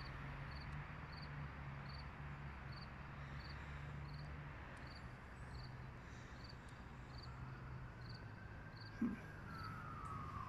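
Crickets chirping in steady, evenly spaced pulses, about two a second, over a faint low hum of traffic. There is a brief knock about nine seconds in, and near the end a distant tone slides down in pitch.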